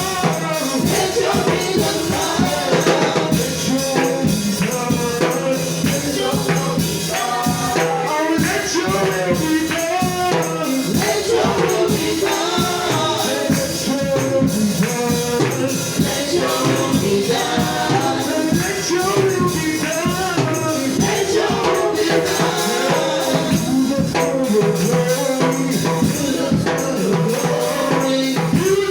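Church praise music: voices singing over a steady beat with tambourine.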